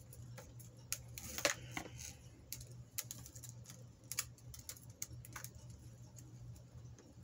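Small pieces of costume jewelry clicking and tapping together as they are handled, in irregular light clicks with a louder cluster about a second and a half in, over a steady low hum.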